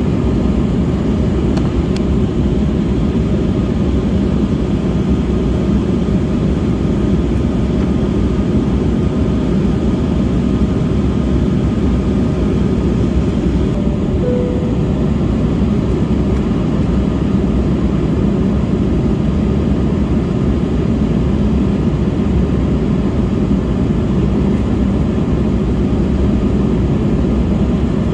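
Steady jet engine and airflow noise inside the cabin of an Embraer 195-E2 climbing after takeoff, heard from a window seat beside the wing. It is mostly a deep, even rumble with a faint steady whine above it.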